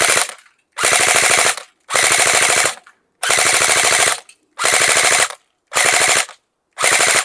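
Game Face Insurgent AEG, an electric AK-47-style airsoft rifle, firing on full automatic in short bursts: about seven bursts, each under a second long, of rapid shots with brief pauses between them.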